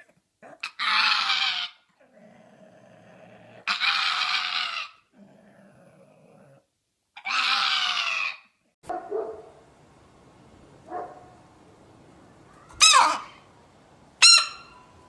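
A dog vocalizing: three loud, drawn-out calls of about a second each, then quieter sounds and two short, high-pitched calls near the end.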